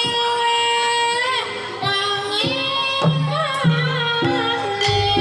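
Javanese gamelan music with a sinden (female singer) holding long, wavering sung notes; about three seconds in, drum strokes and steady low gamelan tones come in under the voice.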